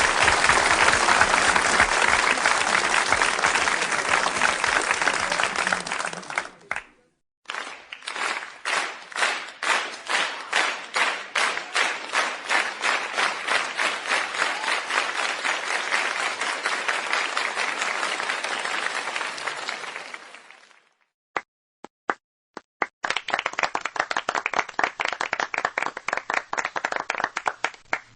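A series of applause recordings: a crowd applauding in a dense, even roar that stops about seven seconds in, then a smaller group clapping with the single claps easy to pick out, fading out after about thirteen seconds. A few lone claps follow, then another group starts clapping near the end.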